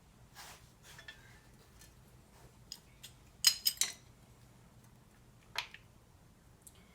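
Scattered metallic clicks and clinks of hand tools and small metal parts being handled, with a quick run of the sharpest clinks about three and a half seconds in.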